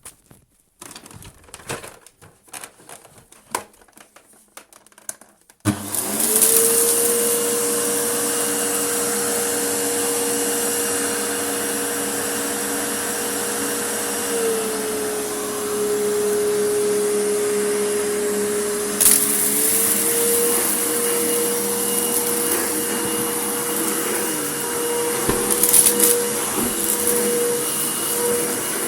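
Vacuum cleaner switched on about six seconds in, after a few clicks and knocks, then running loud and steady with a clear motor whine. The whine drops in pitch for a few seconds midway and rises back. There is a sharp click partway through, and brief crackles near the end.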